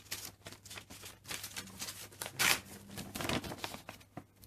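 Paper rustling and crinkling in irregular strokes as a folded instruction sheet is handled and opened out, loudest a little past halfway.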